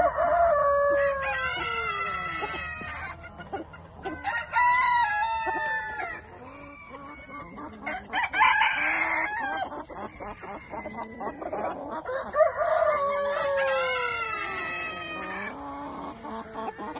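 Roosters crowing: about four long crows that fall in pitch, some overlapping, with shorter calls between them.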